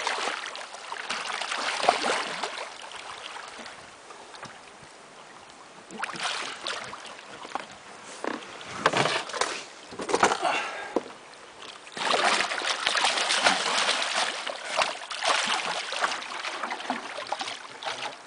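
A big hooked catfish thrashing at the water's surface, throwing up splashes in repeated bursts with quieter gaps between.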